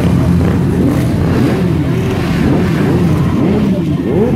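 A crowd of street motorcycles idling and revving, many throttles blipped at once so that overlapping engine notes keep rising and falling in pitch over a steady low rumble.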